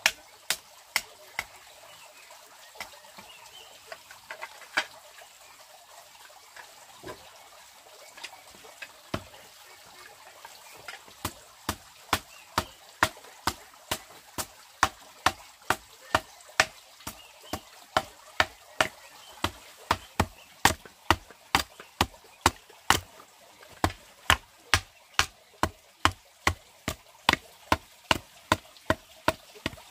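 Hand tool striking wood in a steady rhythm, about two or three blows a second, after a few scattered blows in the first seconds.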